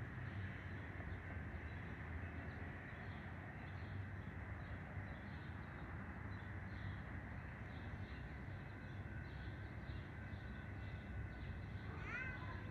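Faint outdoor ambience: a steady low background rumble with small birds chirping faintly and repeatedly, and a bird giving a few harsh calls near the end.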